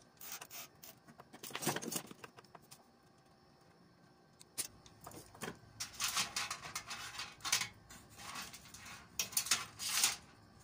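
Cables being tidied and tied inside a computer case: irregular rubbing and scraping of wires and plastic against the metal case, with small clicks, in two spells.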